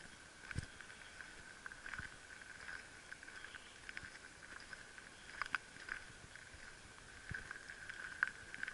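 A steady high-pitched chorus of calling animals, with scattered clicks and a few low knocks.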